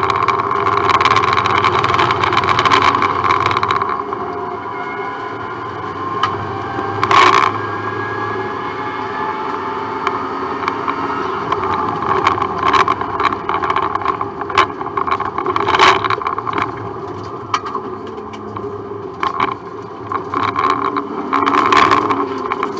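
Subaru Impreza rally car's flat-four engine heard from inside the cabin, its pitch rising and falling as the car accelerates and lifts off for corners, with occasional sharp knocks.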